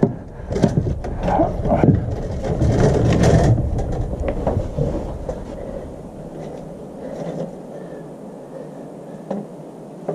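Knocks and shuffling of a person getting up off deck boards and moving about, with a low rumble, loudest in the first four seconds; then faint handling clicks.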